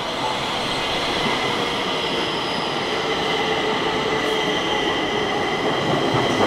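Stockholm metro (tunnelbana) train pulling into the station and rolling past along the platform. Its wheels and running gear give a steady rumble, with a high-pitched whine held over it.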